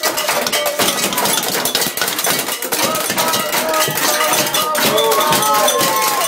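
Dense, rapid metallic clattering and clinking that runs without a break, with high voices whooping and holding notes over it.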